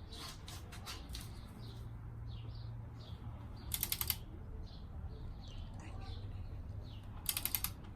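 Ratchet of a torque wrench clicking in two quick runs of about half a dozen clicks each, with a few fainter clicks near the start, as a frame slider bolt is ratcheted down toward its 36 ft-lb torque setting.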